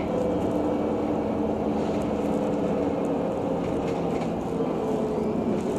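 Heuliez GX 137L city bus under way, heard from inside the cabin: steady engine and road noise with a faint low drone.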